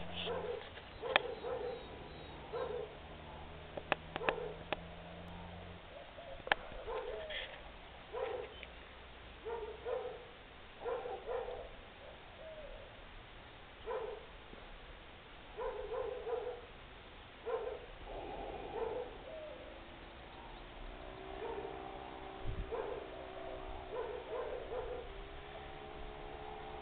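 A dog barking over and over, a short bark about every second or so. A steady droning hum comes in about two-thirds of the way through.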